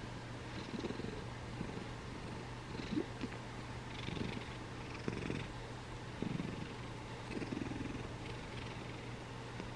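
Domestic cat purring, the purr swelling and easing in slow pulses roughly once a second with her breathing.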